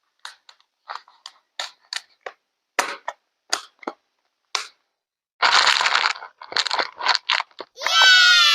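A run of short clicks and taps, two or three a second, then a brief crunching rustle about halfway through, more taps, and a loud squeak falling in pitch near the end.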